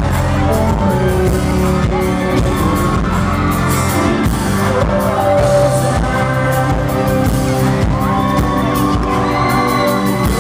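Loud live pop band playing with a male lead singer singing into a handheld microphone.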